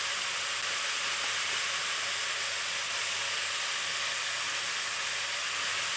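Lamb pieces sizzling in oil in a karahi, a steady even hiss as the meat is fried.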